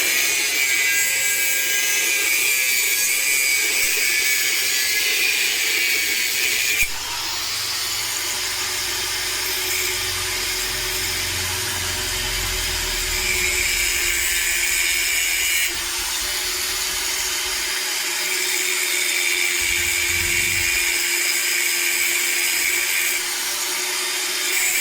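Angle grinder running and grinding, a steady motor whine under a harsh grinding hiss that shifts in level a few times as the work changes.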